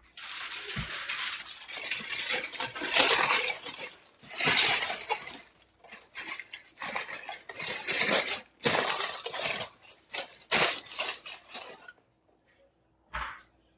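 Irregular bursts of scraping and clattering of hard objects, with metallic clinks like cutlery or utensils. They stop about twelve seconds in, and one short knock follows.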